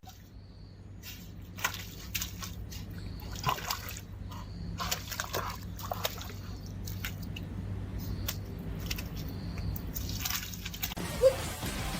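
Water sloshing and splashing in irregular bursts over a low, steady hum.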